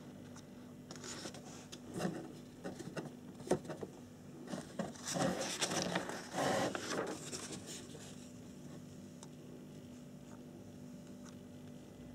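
Paper rustling and crinkling as the pages of a kit instruction booklet are handled and turned, in uneven bursts that are loudest about five to seven seconds in. A faint steady hum runs underneath.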